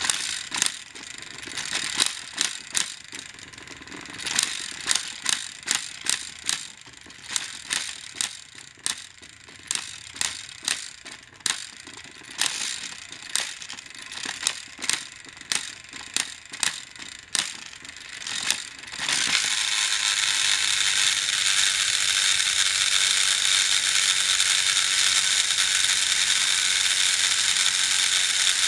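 Two battery-powered TrackMaster toy train engines straining against each other in a tug of war: their motors and gears hum while the wheels slip and clack on the plastic track in irregular sharp clicks. About two-thirds of the way in, the sound switches suddenly to a steady, louder gear-driven whir, as one engine tips over and its wheels spin freely in the air.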